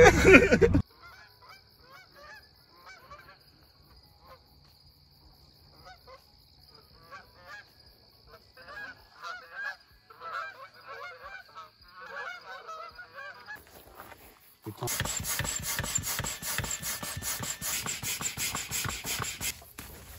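A flock of Canada geese honking faintly in flight, the calls coming thick from about seven seconds in, over a steady high tone. Near the end a louder stretch of rustling noise lasts about five seconds.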